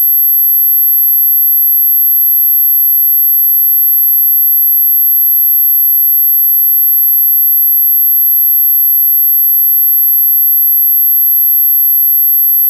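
A steady, pure high-pitched tone at 12,200 Hz, an electronically generated dog-whistle frequency, held unbroken at one pitch.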